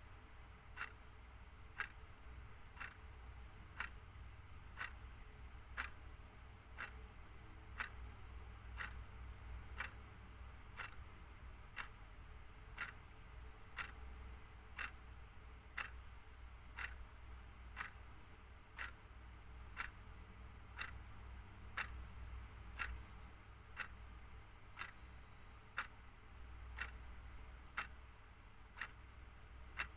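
Clock ticking steadily, about once a second, over a faint low hum.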